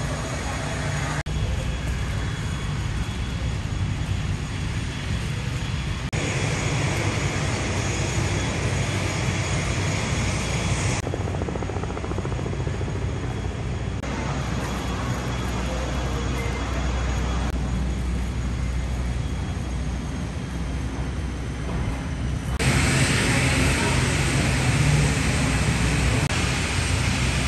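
Steady drone of aircraft noise on an airport apron with a strong low hum. It changes abruptly in tone and loudness several times where short clips are joined.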